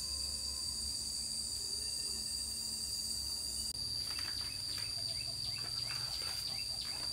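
Steady high-pitched drone of crickets or similar insects. From about four seconds in, a quick run of short bird chirps joins it, several a second.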